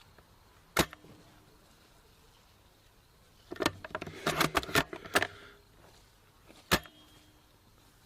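Two sharp snaps from a spring-powered airsoft sniper rifle, about a second in and near the end, each with a short faint ring after it. Between them comes a quick run of clicks and rattles lasting a couple of seconds.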